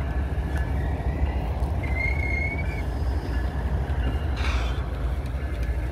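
Intermodal freight train's well cars rolling past and picking up speed: a steady low rumble of steel wheels on rail, with a brief high wheel squeal about two seconds in and a short clatter about four and a half seconds in.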